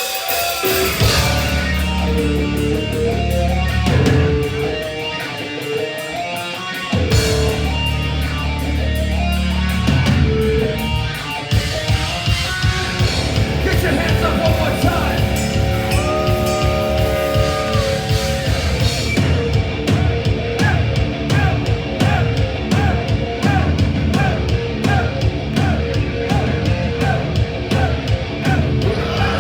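Live heavy metal band playing a song: distorted electric guitars and drum kit, with the full band coming in hard about seven seconds in after a brief drop in the low end.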